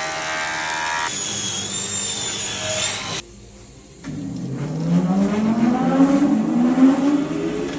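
Woodworking power tools running in several abrupt cuts: a steady motor hum, then a high-pitched whine, a short quieter gap, then a motor whose pitch rises steadily for the last few seconds.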